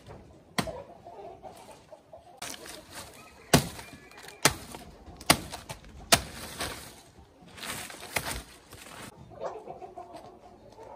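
Machete chopping through a soft, fibrous banana trunk: a series of about nine sharp chops at irregular intervals, the loudest about three and a half seconds in. Chickens cluck in the background, more clearly after the chopping stops near the end.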